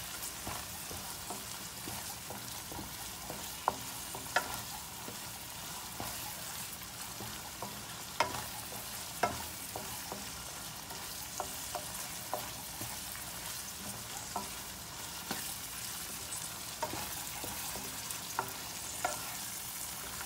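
Minced chicken sizzling in a frying pan as it is stirred with a wooden spatula, with sharp clicks now and then as the spatula knocks against the pan.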